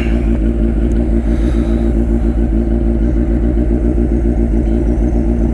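Turbocharged Suzuki Hayabusa's inline-four engine idling steadily and loudly.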